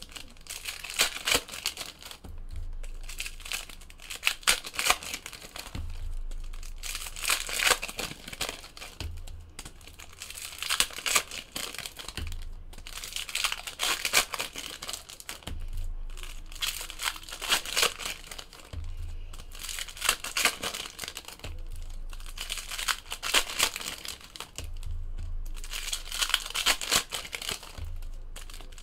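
Foil trading-card pack wrappers crinkling and tearing as packs are ripped open and the cards inside handled, in bursts about every three seconds.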